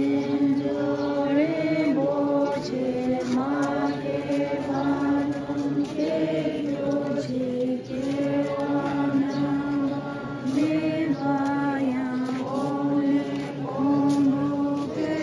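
A crowd of Tibetan marchers chanting together in unison, a slow line of long held notes that step up and down in pitch.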